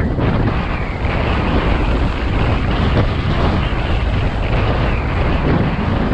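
Steady wind noise buffeting a helmet-mounted camera's microphone as an electric scooter rides along at speed.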